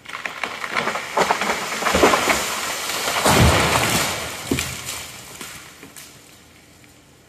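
A 190-year-old oak tree coming down after felling: a run of cracking and snapping branches, a heavy crash as the trunk hits the ground about three and a half seconds in, then crackling that slowly dies away.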